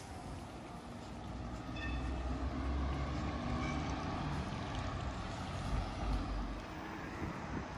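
Street ambience with a motor vehicle's engine rumbling low, loudest from about two to six seconds in.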